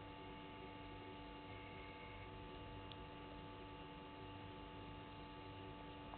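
Faint, steady electrical hum made of several held tones, over a low background hiss.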